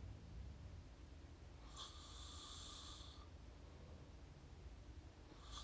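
A person snoring through an open mouth, close to the microphone: one hissing breath a little under two seconds in lasting about a second and a half, and the next starting at the very end, over a steady low rumble.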